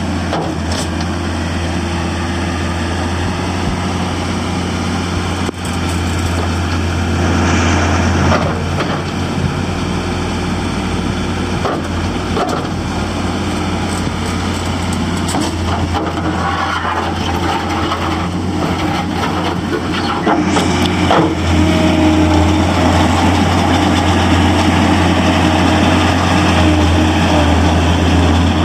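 2008 John Deere CT332 skid steer loader's diesel engine running steadily with a deep hum. There are a few metallic clanks, and the engine gets a little louder about six seconds in and again just past twenty seconds.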